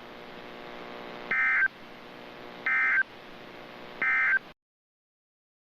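Emergency Alert System End-of-Message data signal: three short bursts of warbling two-tone digital data, about 1.35 seconds apart, over a faint steady hum. The three bursts mark the end of the alert, and the audio cuts off abruptly after the last one.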